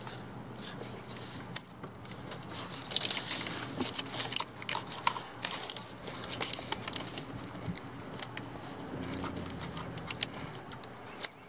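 Hands working at the coolant temperature sensor's wiring connector and the plastic corrugated wire loom: a quick run of small plastic clicks, taps and rustles, busiest in the middle.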